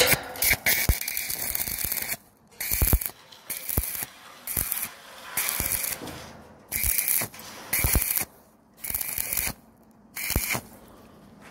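Stick-welding arc on square steel tubing, crackling and hissing in short bursts about a second long. The arc is broken off and restruck again and again, with a few sharp clicks in between.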